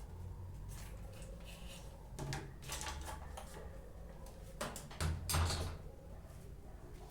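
Knocks, clicks and scraping from hands working on a microwave oven while opening it up, with louder clattering about two seconds in and again around five seconds in.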